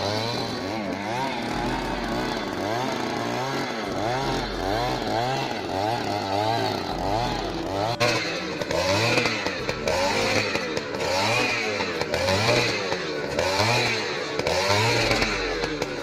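Petrol earth auger's small two-stroke engine running under load as the auger bit bores into the soil, with background music with a steady beat underneath.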